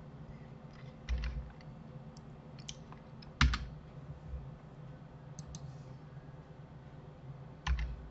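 A few scattered computer keyboard keystrokes and clicks, the loudest about three and a half seconds in, over a faint steady low hum.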